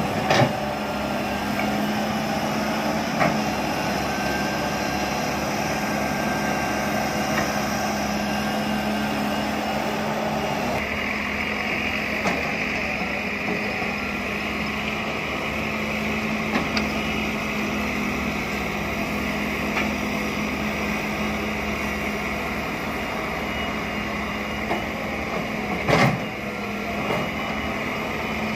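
John Deere 595D wheeled excavator's diesel engine running steadily under load as it digs and swings sand into a dump truck. A higher whine joins the engine about a third of the way in, and a few sharp knocks sound, the loudest near the end.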